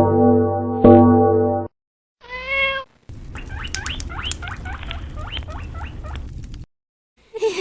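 Music with sustained notes stops about two seconds in. A single cat meow follows, then a few seconds of many quick, high, rising squeaks over a steady hiss.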